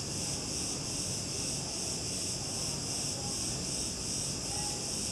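Steady high-pitched chorus of insects, pulsing a few times a second.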